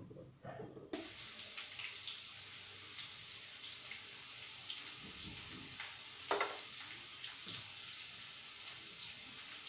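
Tomato chutney simmering in a pan on the stove, a steady sizzling hiss with small crackles. A single knock comes about six seconds in.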